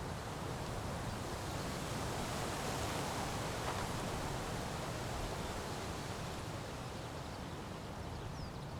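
Steady outdoor ambience: an even hiss of wind-like noise that swells slightly in the middle.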